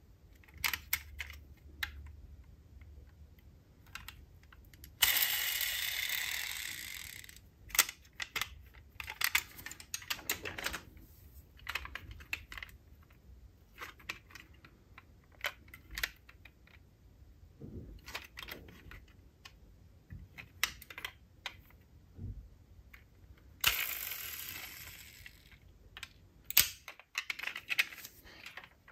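Diecast metal toy cars being handled, giving many light clicks and taps. Two longer noisy stretches come about five seconds in and again near the end.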